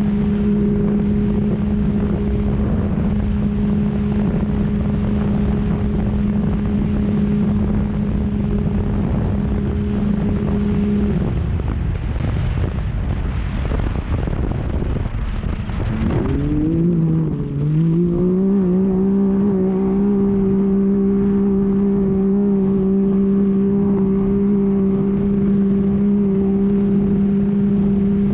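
Off-road race vehicle's engine at high, steady revs under a constant rush of wind and terrain noise. About eleven seconds in, the engine note fades into the rush of noise. Near sixteen seconds it dips and climbs back, then holds steady again.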